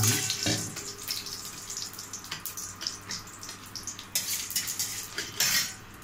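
Ginger-garlic paste sizzling and spluttering in hot oil with mustard seeds and whole spices in a steel pan: a steady hiss with many small crackling pops. A louder clatter of metal comes a little past five seconds in.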